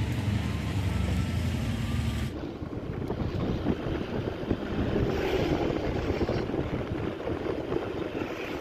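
Motor scooter engine running with a low steady hum, then, after an abrupt change about two seconds in, riding along a road: engine and road noise under wind rushing over the microphone.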